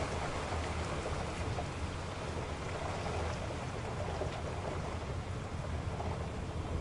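A car driving in rain: an even hiss of rain and tyres on a wet road over a steady low rumble, with a few faint ticks.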